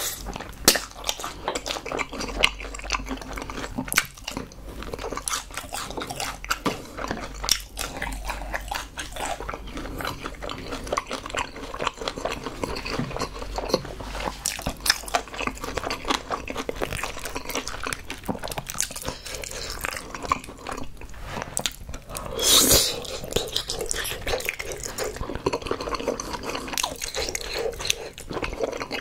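Close-miked chewing of chewy spicy rice cakes and thick glass noodles, with many wet mouth clicks and smacks in an uneven stream. A single brief, louder rush of noise comes about three-quarters of the way through.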